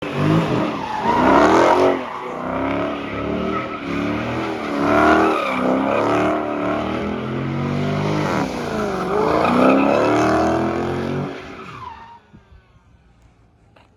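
Car engine revving, its pitch rising and falling in several swells, then fading out about twelve seconds in.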